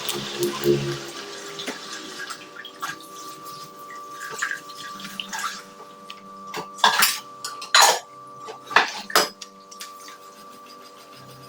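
Dishes and cutlery clinking and knocking, as if being washed and set down, after running water fades in the first couple of seconds. The loudest are four sharp clatters about two-thirds of the way through.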